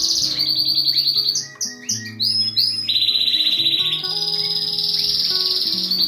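Canary singing, rapid trills held for a second or more at a time and shifting in pitch, with a run of short sliding notes about two seconds in, over background music.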